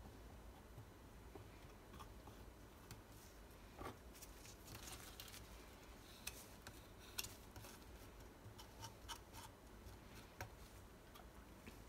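Faint scraping and scattered light clicks of a metal palette knife spreading thick acrylic paint on a stretched canvas, busiest through the middle of the stretch.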